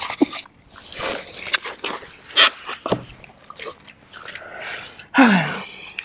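Close-up wet chewing, biting and sucking of people eating chicken wings off the bone with no hands, in irregular short bursts. About five seconds in there is a short voiced breath that falls in pitch.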